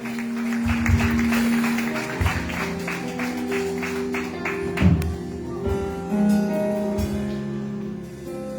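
Music with a quick, even strummed rhythm, about four strokes a second, giving way to held notes about five seconds in.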